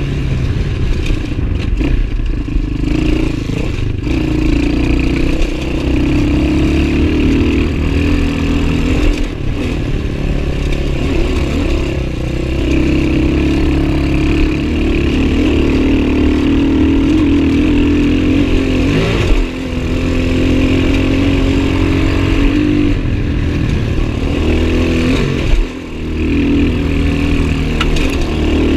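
A 2011 Gio X31 250cc single-cylinder dirt bike engine runs under load on a dirt trail, its pitch rising and falling with the throttle and gear changes. It dips briefly twice, about two-thirds in and near the end, as the throttle is rolled off.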